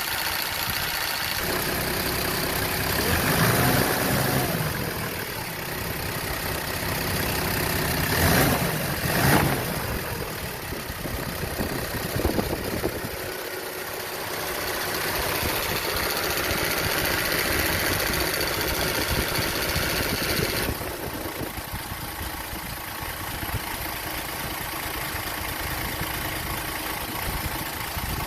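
Toyota Land Cruiser 80 Series' 1HD straight-six diesel idling with its AC compressor engaged, making a strange, noisy sound. The owner was told this comes from a compressor that is too big, a size 17 where a size 15 belongs. A higher-pitched noise over the engine cuts off suddenly about two-thirds of the way through, and there are two sharp knocks about a third of the way in.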